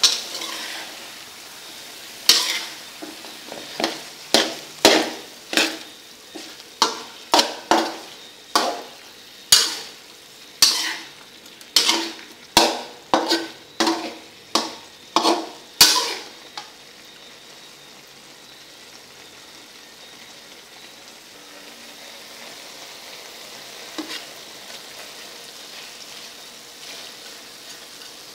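Metal spatula scraping and clattering against a metal wok as frog pieces are stir-fried, with oil sizzling underneath. The strokes come roughly one or two a second for the first half. After that only the steady sizzle goes on, with one light knock.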